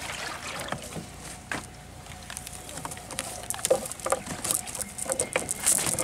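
Wet cast net being handled against the bamboo slats of a wooden boat as a fish is worked free of the mesh: scattered rustles with short clicks and knocks.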